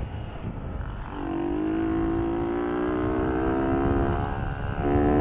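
Small motorcycle engine accelerating under the rider, its pitch climbing steadily from about a second in, easing briefly near the end and then picking up again, over wind and road rumble.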